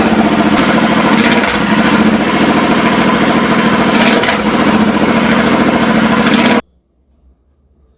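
Royal Enfield Interceptor 650's parallel-twin engine running loud with its silencers removed, open exhaust. It cuts off suddenly about six and a half seconds in.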